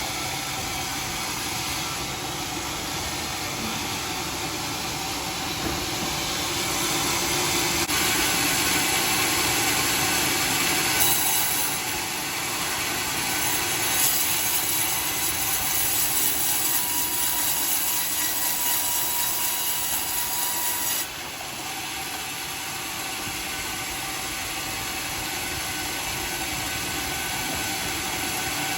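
Homemade sawmill running while sawing a dry teak beam, a steady machine noise. It grows louder and brighter for a stretch in the middle, then drops back abruptly about 21 seconds in.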